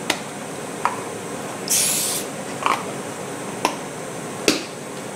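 One short aerosol spray hiss of about half a second, about two seconds in, fitting CA-glue accelerator sprayed on for a painter's-tape-and-superglue hold-down. Around it come five light clicks and knocks of small parts being handled.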